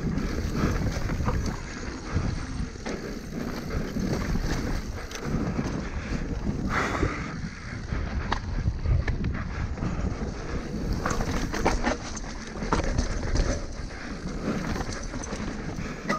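Mountain bike descending dirt singletrack at speed: wind buffeting the microphone over the tyres rolling on dirt and rock, with frequent sharp clatters and knocks as the bike hits bumps.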